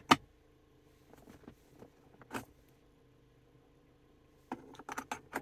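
Sharp clicks and taps of switches and controls being handled in a car's cabin: one loud click just after the start, a few lighter ones, and a quick run of clicks near the end, over a faint steady low hum.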